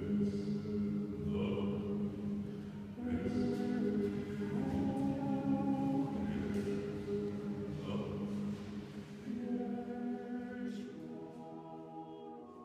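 Male vocal quartet singing a cappella in close harmony, with long held chords that change every second or two. The singing fades away near the end.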